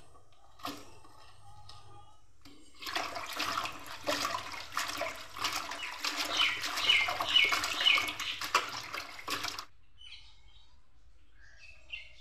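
Hands swishing chopped Malabar spinach (pui shak) leaves in a steel pot of water, a splashing, sloshing sound that starts a couple of seconds in and lasts about seven seconds. A few short high chirps are heard partway through.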